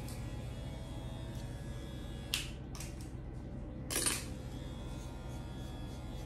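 Straight razor and comb handled at a client's neckline: two sharp clicks a little over two seconds in, then a short scrape about four seconds in, over a steady low hum.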